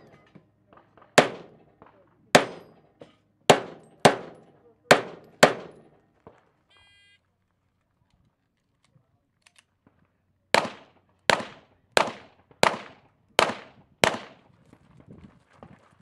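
Shots from a 9mm Dan Wesson 1911 pistol: six shots fired in quick succession during the first five and a half seconds, then a short electronic shot-timer start beep about seven seconds in. After a pause of about three seconds comes a second string of six shots, evenly spaced about two-thirds of a second apart.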